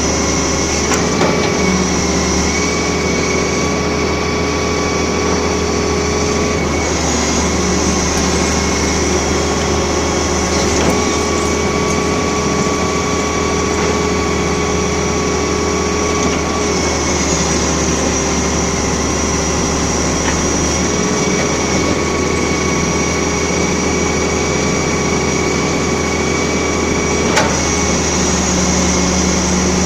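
Excavator's diesel engine running steadily at working revs, its pitch dipping and recovering slightly a few times, with a high steady whine over it. A single sharp knock comes near the end.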